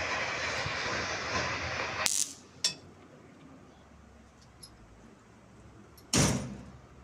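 A steady loud hiss that cuts off suddenly about two seconds in, followed by a click. Near the end comes a single loud knock.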